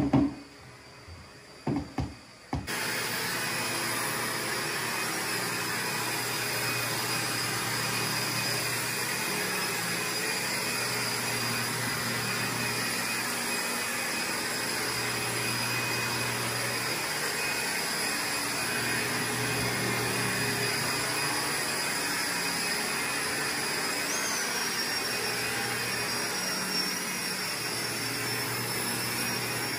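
A few short knocks, then, about two and a half seconds in, the vacuum suction of carpet-cleaning equipment starts abruptly and runs steadily.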